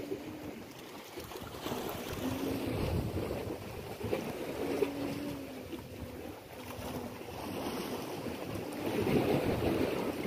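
Wind buffeting the microphone over sea waves washing against the rocks below.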